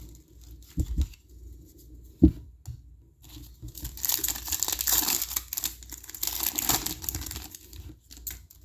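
Two short dull knocks, then a foil trading card pack being torn open and its wrapper crinkled for about four seconds.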